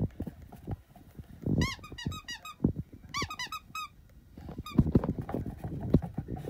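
Rubber banana squeaky toy squeezed in quick runs of high squeaks, each squeak rising then falling in pitch: several about one and a half seconds in, several more about three seconds in, and a couple near five seconds. Then a puppy's paws scramble and thump on the carpet.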